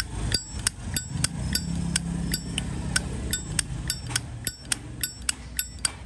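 Silver-plated Zippo lighter's hinged lid flicked open and snapped shut over and over. Each flick gives a sharp metallic click with a short ring, about three a second.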